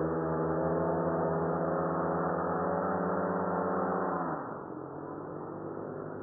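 Remote-controlled blimp's propeller motors running at a steady pitch, then winding down quickly about four seconds in as they are throttled back while the blimp comes down to the ground handler, leaving a lower, rougher running sound.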